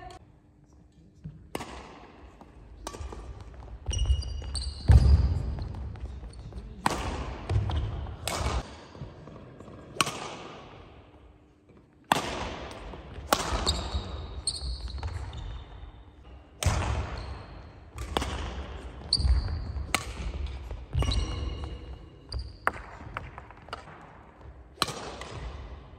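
Badminton singles rally on a wooden sports-hall floor: sharp racket strikes on the shuttlecock, thudding footsteps and short sneaker squeaks, each strike echoing in the hall. There is a brief lull between points just before the middle.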